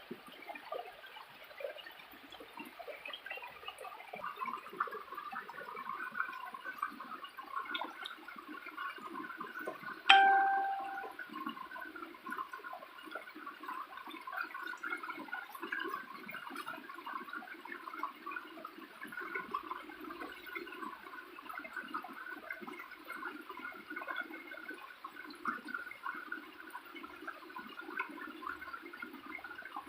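Small waterfall splashing and gurgling steadily. About ten seconds in there is a single sharp clink with a short ringing tone.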